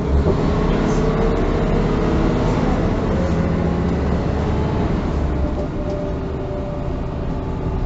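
Mercedes-Benz O405N1 city bus running on a ride, its diesel engine heard from inside the passenger cabin as a steady drone.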